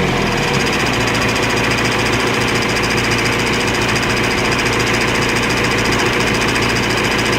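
The diesel engine of a 1978 John Deere 310A backhoe idling steadily with a fast, even diesel clatter. It is running on a newly replaced fuel filter with no leaks.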